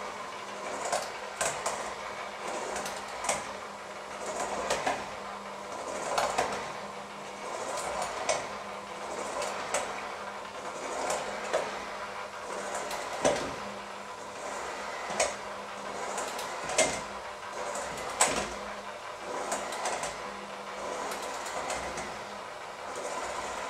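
Electric hand mixer running steadily, its beaters working a thick mixture in a stainless steel bowl, with sharp knocks and scrapes against the bowl every second or so.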